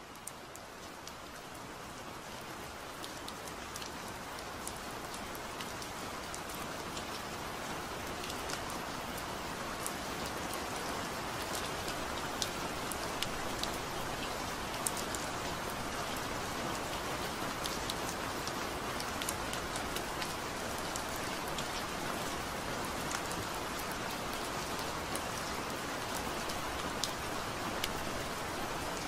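Steady rain with scattered drop ticks, fading in over the first several seconds and then holding even.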